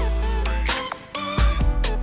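Background music with a heavy bass beat and drums, with a short break about a second in.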